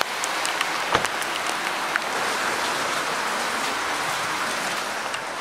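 Heavy rain pouring steadily, with a few sharp taps close by, the strongest about one and two seconds in.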